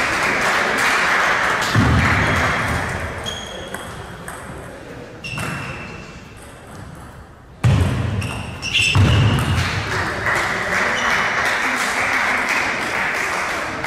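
Table tennis in a hall: a short rally of sharp clicks of the ball off bats and table around the middle, with spectators clapping and cheering at the start and again after the point near the end.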